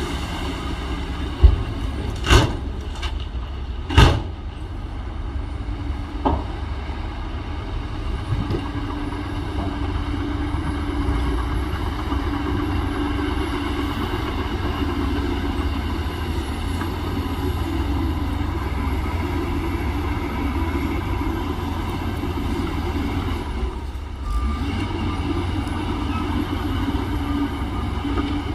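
Heavy diesel earthmoving machinery running steadily under load, with three sharp knocks in the first few seconds and a brief lull near the end.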